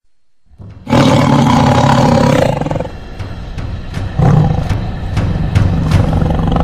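A big cat's roar bursts in about a second in and lasts a second and a half. Intro music with a steady beat follows.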